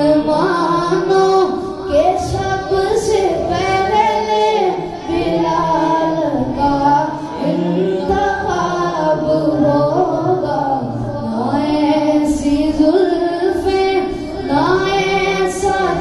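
A boy singing a naat, an Urdu devotional song in praise of the Prophet, solo into a hand-held microphone, the melody rising and falling in long held phrases.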